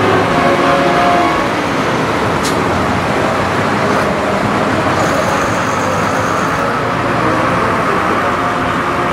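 Steady engine noise from running machinery, an even din with no clear rhythm, and a faint click about two and a half seconds in.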